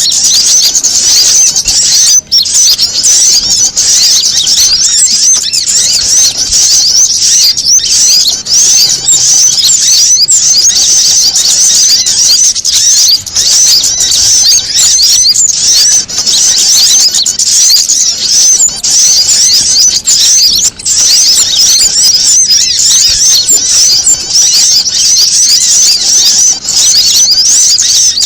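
Bird-lure recording of many small birds chattering at once, a layered mix of prinia, sunbird and other small-bird calls in an agitated, alarm-like frenzy. Dense, rapid, high-pitched chirps and trills run on without a break, dipping only for a moment now and then.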